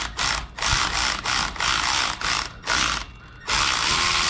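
Cordless electric ratchet whirring in a string of short bursts, then running steadily from about three and a half seconds in, as it backs out the valve spring compressor after the new valve keepers are seated.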